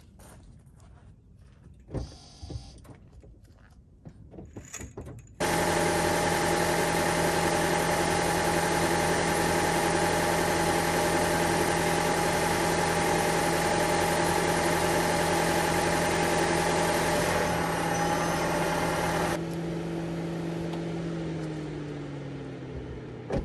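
Toyota RAV4 Hybrid's 2.5-litre four-cylinder engine starting suddenly about five seconds in and running steadily, freshly refilled with 0W-16 oil and run to check for leaks. Near the end it gets quieter and its pitch falls as it slows down.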